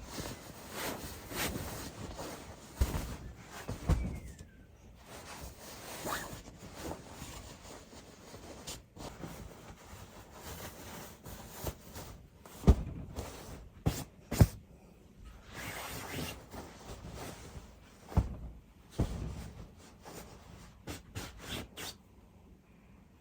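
Scattered sharp knocks and clicks over soft rustling, like objects being handled and set down. A few of the knocks stand out as much louder.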